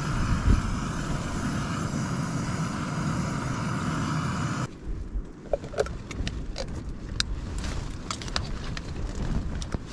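Backpacking gas canister stove burning with a steady hiss under a pot. It cuts off suddenly a little under halfway through, giving way to a metal spoon clinking and scraping as beans are spooned out of a tin into the pot.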